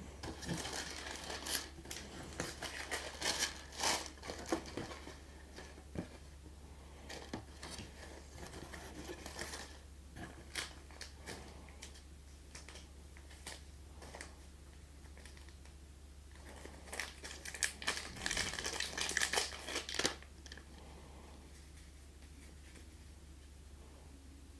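Tissue paper crinkling and rustling as hands unfold and push it aside inside a wooden cigar box. It comes in two spells, the second about seventeen seconds in, with quieter handling between.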